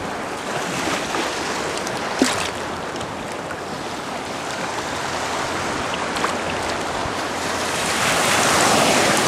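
Steady wash of shallow sea surf around a person standing in the water, with wind on the microphone; a short click about two seconds in, and the surf and wind grow a little louder near the end.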